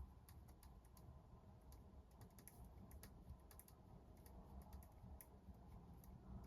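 Faint computer-keyboard typing: irregular light clicks, several a second, over a low steady rumble of background noise.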